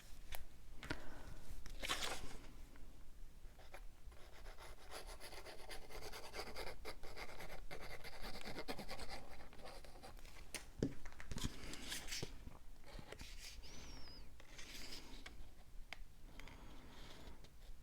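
Cardstock being handled and rubbed as a paper piece is glued onto a tab, a dry scratchy rubbing with a few light taps and knocks on the work surface.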